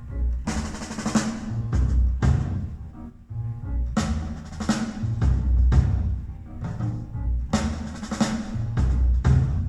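Music played through Bowers & Wilkins 683 S2 floor-standing speakers driven by a Marantz PM7000N amplifier: a drum-heavy track with deep bass notes and hard drum hits.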